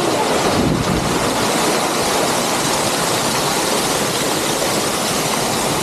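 Water cascading down a rock wall into a fountain basin, a steady splashing rush.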